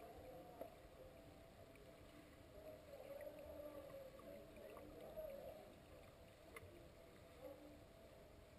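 Near silence: faint, muffled underwater swimming-pool ambience heard through the water. A low wavering hum runs throughout, with a few faint clicks.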